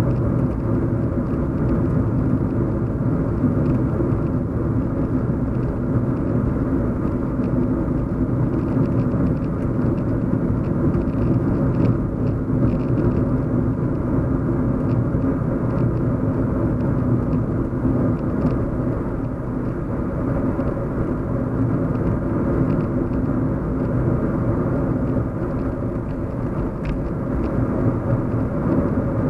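Steady low hum and rumble of a car driving, heard from inside the cabin, with a few faint clicks.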